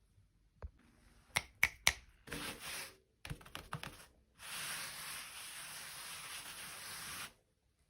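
Hands handling objects at close range: three sharp clicks in quick succession, a short rustle, a few more small clicks, then a steady rubbing hiss lasting about three seconds that stops suddenly.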